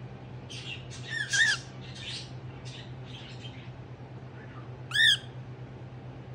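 Cockatiels calling: two short, loud squawks, each rising then falling in pitch, about a second in and again about five seconds in, with soft scratchy chatter between them while one bird preens the other's head.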